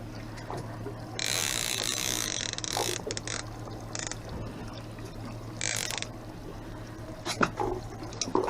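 Fishing reel drag buzzing in several bursts, the longest about two seconds, as a hooked salmon runs from the boat and pulls line off the reel. A steady low hum, typical of an idling boat engine, runs underneath.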